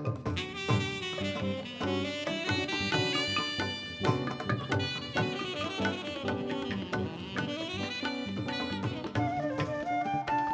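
Live raga-based ensemble music: a wind instrument plays fast runs of short notes over hand-drum percussion, sliding upward into a held note near the end.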